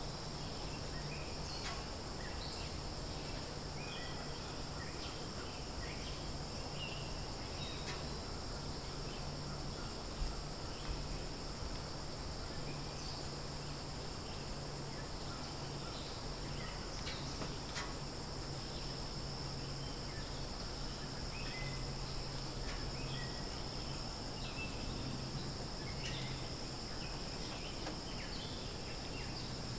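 Outdoor ambience of insects trilling steadily at a high pitch, with scattered short bird chirps and a low steady hum underneath.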